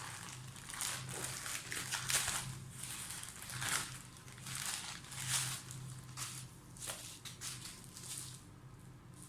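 Packaging being unwrapped by hand: irregular rustling and crinkling of wrapping, a swish every second or so.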